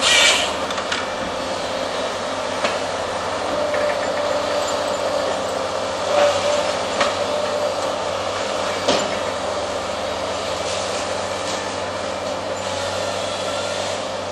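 Volvo excavator's engine and hydraulics running steadily with a held whine while the AFM 58 Husky harvester head works timber. A brief loud hiss comes at the start, and sharp knocks and cracks follow every second or few.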